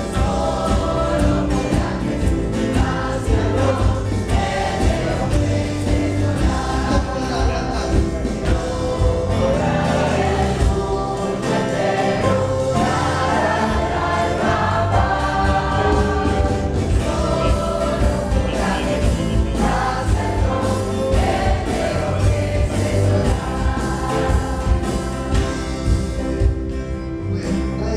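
Congregation singing a Spanish hymn in unison, many voices together over steady low accompaniment notes.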